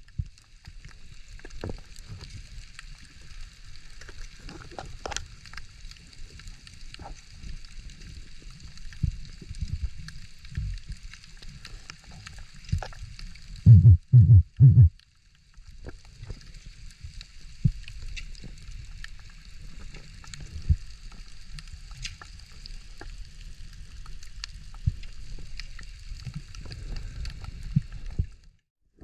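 Underwater sound as picked up by a camera in its waterproof housing: a steady low rumble of moving water with constant fine crackling. About halfway through come four loud low thumps in quick succession.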